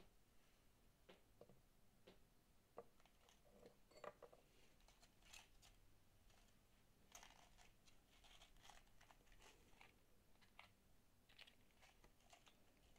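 Near silence with faint rustles and light taps of small cardboard train-shaped candy boxes being handled and turned in the fingers, busier in the second half.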